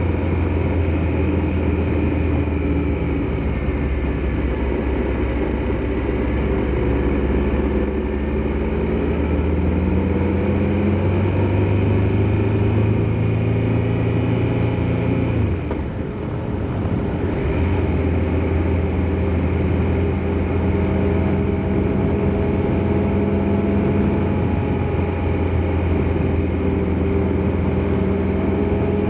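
Triumph Tiger Explorer XRx motorcycle's inline-three engine running under way, its pitch climbing in steps as it pulls through the gears. About halfway through it drops off briefly, then runs steady to the end.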